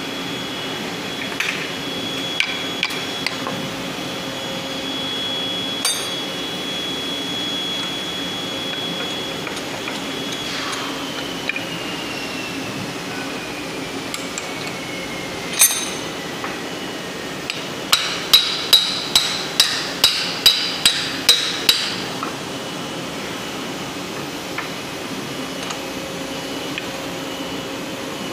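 Hammer striking metal during gearbox disassembly. A few single blows come first, then a quick run of about a dozen strikes, around three a second, over a steady workshop hum.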